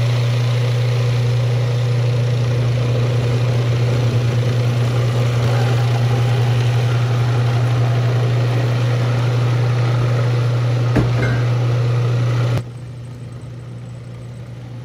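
Electric food processor motor running steadily, mixing almond and coconut flour with hot water into a dough. There is a single click about eleven seconds in. Near the end the sound drops suddenly to a quieter hum.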